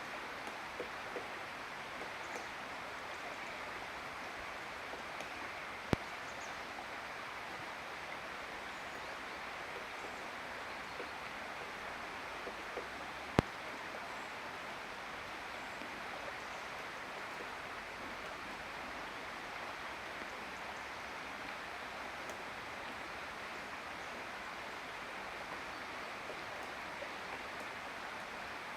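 Steady outdoor rushing noise with no clear pattern, broken by two sharp clicks about seven seconds apart, the second the louder.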